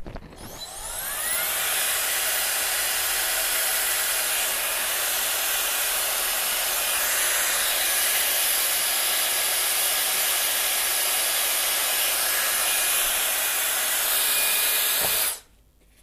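GA.MA iQ Perfetto hair dryer running its automatic self-cleaning cycle, with the motor reversed to blow dust out through the back and the rear filter off. It starts with a rising whine as it spins up, then a steady rush of air with a high whine, which cuts off suddenly near the end after about fifteen seconds.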